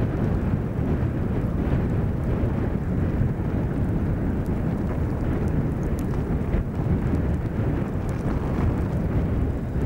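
Steady low rumble of wind on the microphone, with faint scattered crackles.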